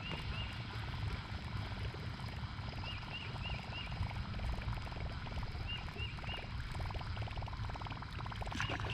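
Outdoor lake ambience: a steady low rumble of wind and water, with a bird chirping in short runs of three or four high notes several times.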